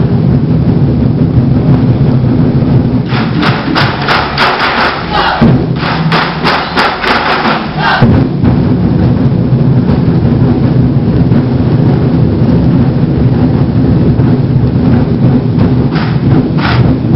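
Twenty-Four Festive Drums ensemble of large Chinese drums playing a dense, loud rhythm. From about three to eight seconds in, sharp clicks of sticks at about three a second cut through the drumming, and they return briefly near the end.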